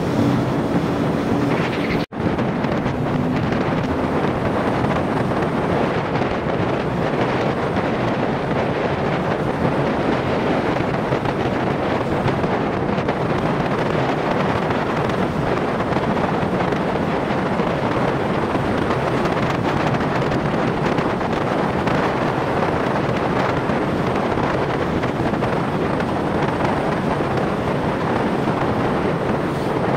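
Wind rushing over the microphone of a camera on a moving motorcycle at highway speed: a steady, even rush. It cuts out for an instant about two seconds in.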